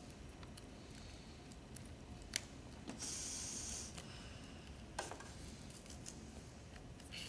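A bag-valve resuscitator is squeezed once, pushing air through the airway tube into a plastic training mannequin: a hiss of air about three seconds in that lasts about a second. Small clicks and handling noises come from the tube holder being fastened, one sharp click a little before the hiss and another soon after it.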